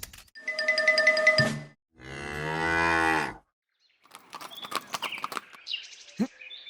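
A cow mooing, one long call about two seconds in, preceded by a short bright chiming jingle and followed by scattered light clicks.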